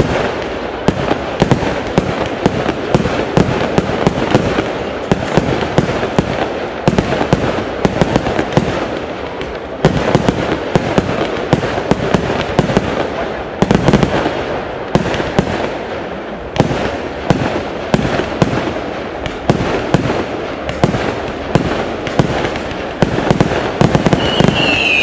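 Fireworks display: aerial shells bursting and crackling in a dense, continuous run of sharp bangs, several a second. A high whistle from a rising firework starts near the end.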